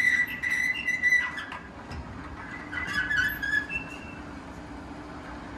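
Metal squealing as the wheeled powder-coating rack is pushed into the curing oven. The squeal holds steady for about the first second and a half, and a shorter, wavering squeal comes about three seconds in. A steady low hum runs underneath.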